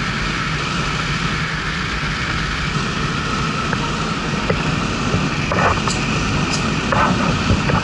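Steady in-cabin road and wind noise of a Mercedes CLK 430 cruising at highway speed: a low rumble with an even hiss over it.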